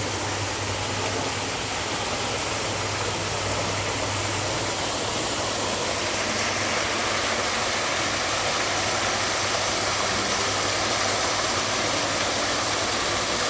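Steady rushing water of a waterfall, an even noise with a low hum underneath for the first few seconds.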